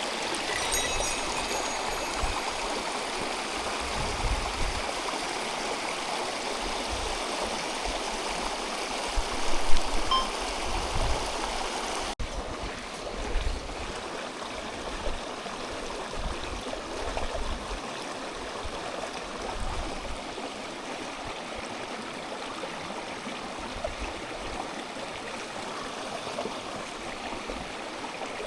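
Mountain stream rushing steadily over rocks. The sound breaks off cleanly about twelve seconds in and carries on a little quieter. There is one brief louder knock near ten seconds.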